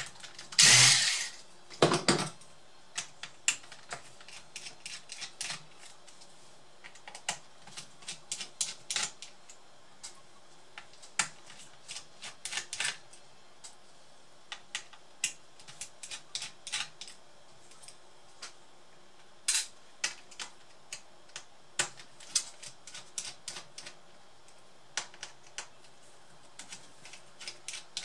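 A cordless electric screwdriver runs briefly twice in the first couple of seconds, backing out a laptop's bottom-cover screws. Then comes a long irregular run of small clicks and taps as screws and plastic case parts are picked out and handled by hand.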